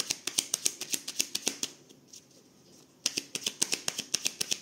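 A deck of divination cards being shuffled by hand: quick runs of light card snaps, several a second. They pause for about a second midway, then start again.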